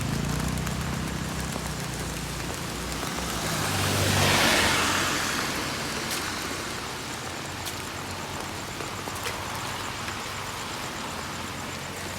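A motor vehicle's engine hum fades away. Then a vehicle passes on a wet road, its tyre hiss swelling and falling about four seconds in. Steady rain hiss follows, with a few faint ticks.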